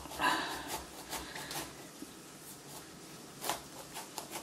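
A large kitchen knife sawing and scraping into a hard-skinned garden marrow, tough going like cutting a turnip. A few strokes sound in the first second or so, then it goes quieter, with one sharp click about three and a half seconds in.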